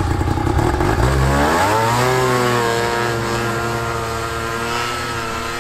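2021 Yamaha SXVenom snowmobile's two-stroke engine revving up about a second in as the sled pulls away. It then runs at a steady pitch and slowly fades as the sled rides off.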